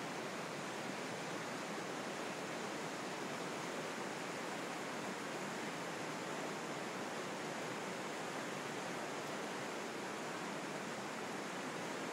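River water rushing steadily among boulders: an even hiss that neither rises nor falls.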